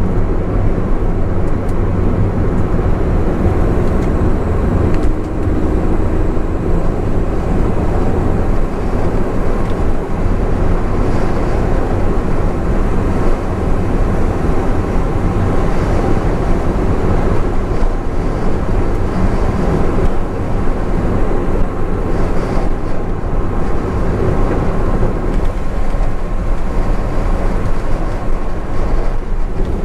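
Honda S660 on the move, its turbocharged three-cylinder engine and tyres making a steady low rumble of driving noise.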